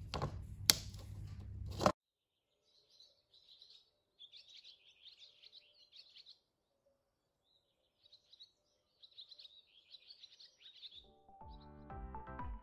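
Hard plastic rings cut from yogurt bottles handled and knocking together, with a sharp click about a second in. Then faint bird chirping in short bursts for several seconds, with music starting near the end.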